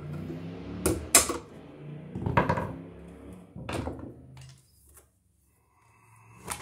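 Hammer blows driving the nails of a new-work electrical box into a wooden wall stud: four knocks at uneven spacing, the second the loudest.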